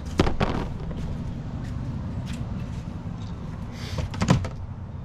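A few clunks and knocks from the truck's metal utility-body compartments as parts and trays are handled: two just after the start and a cluster about four seconds in, over a steady low background rumble.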